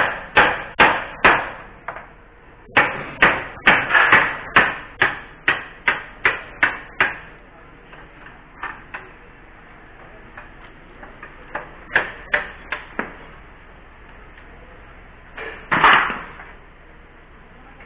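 Repeated sharp metal-on-metal blows from a steel pipe hammering at a motorcycle's handlebar fitting, about two to three a second. They thin to a few scattered knocks after about seven seconds, and a louder, longer clatter comes near the end.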